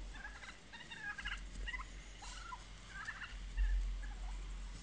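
Turkey calling in several short, rapid bursts over the first three seconds, with a low rumble about three and a half seconds in.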